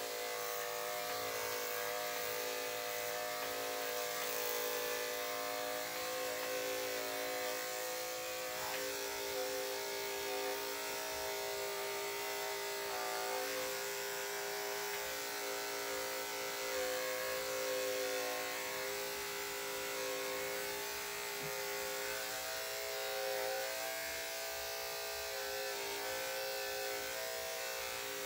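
Corded electric dog grooming clippers fitted with a #40 blade running steadily as they shave the thick hair on a dog's paw pads: an even electric buzz, its pitch wavering slightly at times as the blade works through the hair.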